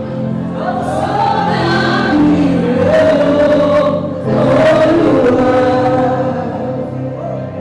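Gospel choir singing a slow, held melody over steady sustained chords, in two swelling phrases with a short dip about four seconds in.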